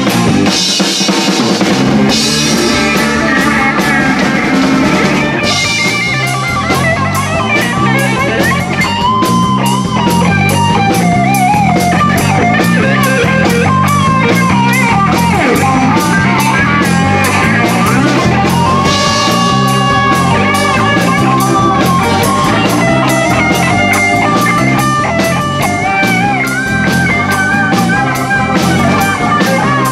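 Live rock band playing loud: drum kit, bass guitar and electric guitar, with a lead guitar line of bent, wavering notes through most of it.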